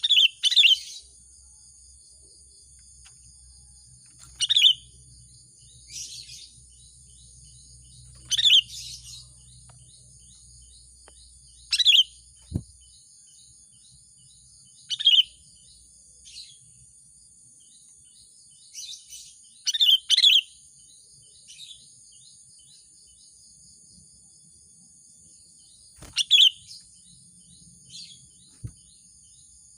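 Sooty-headed bulbul (kutilang) giving short, loud chattering calls every few seconds, some in quick pairs, the kind of call that draws a rival bird. A steady high-pitched hum runs underneath.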